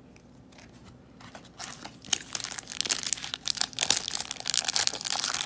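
A trading-card pack wrapper crinkling and tearing as it is handled and opened, starting about two seconds in as a dense run of crackles.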